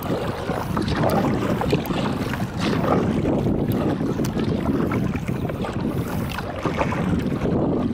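Wind rumbling steadily on the microphone over water splashing and lapping against a kayak as it is paddled, with a few faint light ticks.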